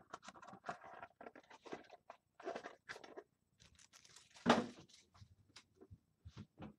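Foil trading-card pack wrapper being handled, crinkling and tearing in short, irregular rustles, with one louder crackle about four and a half seconds in.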